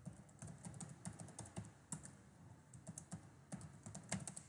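Computer keyboard typing: a quick, uneven run of faint keystrokes.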